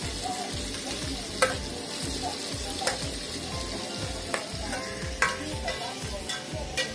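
Sliced onions sizzling steadily as they sauté in an aluminium pot over a portable gas burner. A few sharp clicks sound now and then over the sizzle, the loudest about a second and a half in.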